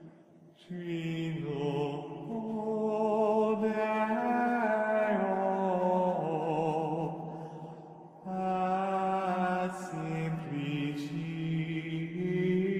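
Slow sung chant as background music: voices holding long, wavering notes in two phrases, with a short break about eight seconds in.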